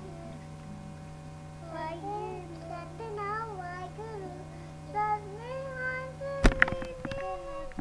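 A young child singing a gliding tune over a steady low hum, followed by a few loud sharp knocks about six and a half seconds in and a held note near the end.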